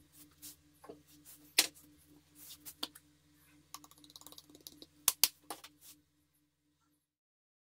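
Handling of a plastic spice jar: a few sharp clicks and knocks, a light rapid rattling as ground cinnamon is shaken out of it, then two sharp clicks close together, after which the sound cuts off.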